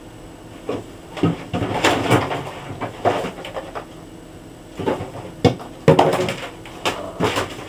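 Rummaging in an open refrigerator: irregular knocks and clatters of items being moved and set down, the loudest just before 6 s.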